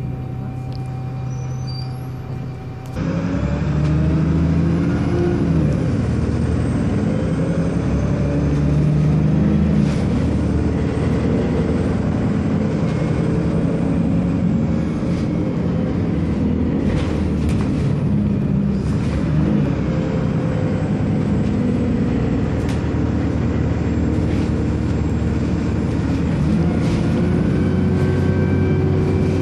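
Alexander Dennis Enviro300 single-deck bus heard from inside the saloon while on the move. The engine runs quietly for the first few seconds, then gets suddenly louder about three seconds in as it takes up power. Its note rises as the bus accelerates, and it then runs steadily under load with rumble and rattle from the body.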